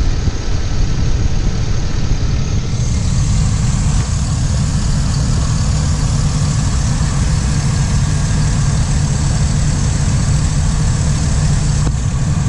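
2004 GMC Savana 3500's 6.0-litre V8 engine idling steadily and smoothly, heard from the open engine bay, with a hiss over it that gets brighter about three seconds in.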